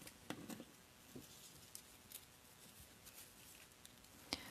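Near silence: faint rustles and small ticks of paper craft materials being handled, with one sharper click shortly before the end.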